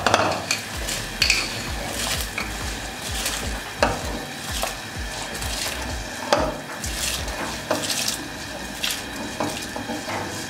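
Soaked basmati rice going into a pot of water at a rolling boil, with a utensil knocking and scraping against the pot at irregular moments over the steady bubbling of the water.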